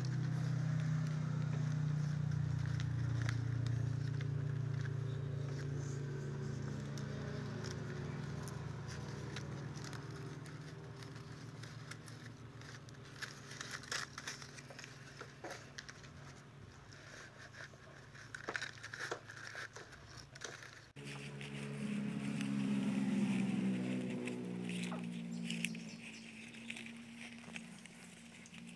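Strips of fresh coconut leaf rustling and crackling as they are threaded and pulled tight by hand. Under them runs a low steady drone, loudest in the first few seconds and again about two-thirds through.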